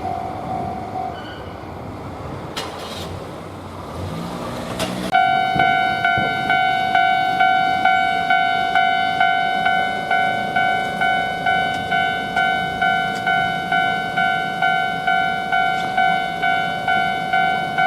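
Japanese railroad crossing's electronic warning bell starting up about five seconds in, then sounding its steady clanging "kan-kan" at about two strikes a second: the warning that a tram is approaching. Passing-vehicle noise comes before it.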